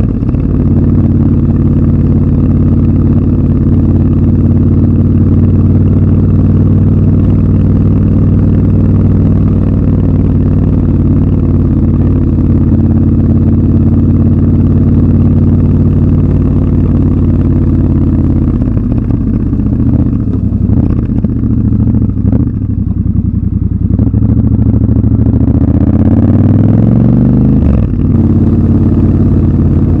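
Triumph Scrambler 1200 XC's 1200 cc parallel-twin engine running at a steady throttle while riding. About two-thirds of the way in the revs fall as the bike slows. The revs then climb again under acceleration, with a gear change near the end.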